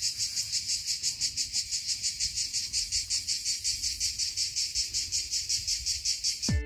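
Chorus of cicadas in olive trees: a loud, high buzzing that pulses evenly several times a second without a break.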